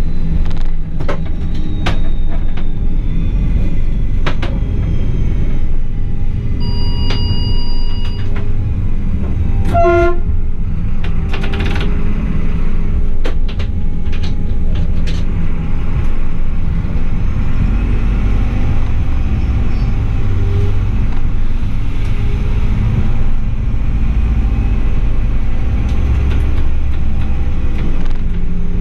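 Class 840 RegioSpider diesel railcar running along the track: a steady low rumble with frequent sharp clicks and knocks from the wheels and bogie. A brief high steady tone sounds about seven seconds in, and a short chirp about ten seconds in.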